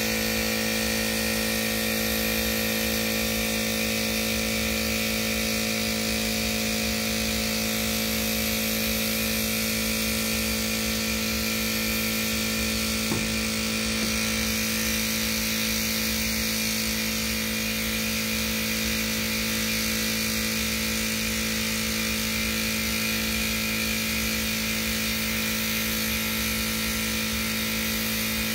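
Air compressor running steadily with a constant hum, under the hiss of a gravity-feed paint spray gun spraying single-stage paint.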